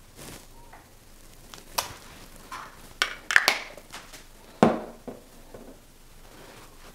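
Handling of a foundation bottle and its cap: a few scattered sharp clicks and small knocks, with a cluster about three seconds in and the loudest knock about four and a half seconds in.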